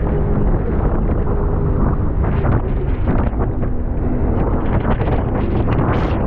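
Heavy wind buffeting the microphone over a motorboat's engine running at speed, in uneven gusts that grow more frequent in the second half.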